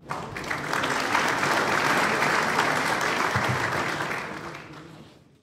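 Congregation applauding, beginning abruptly and fading out near the end.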